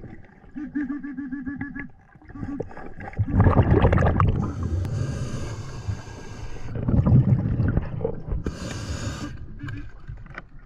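A diver breathing through a snorkel underwater: loud bubbling exhales, each followed by a hissing breath, twice. About a second in, an underwater metal detector gives a short pulsing tone.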